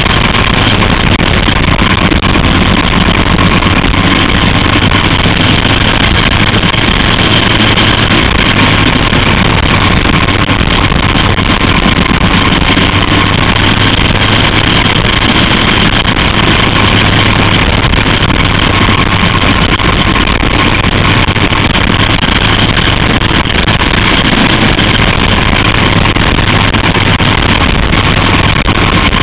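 Small open-cockpit race car's engine running steadily at speed, heard from the onboard camera as a loud, unbroken drone.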